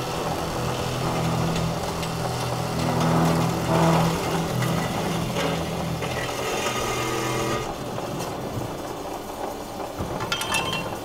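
Hydraulic automatic circular sawing machine running with a steady motor hum and mechanical noise, which drops off about seven and a half seconds in. A few sharp metallic clicks or knocks follow near the end.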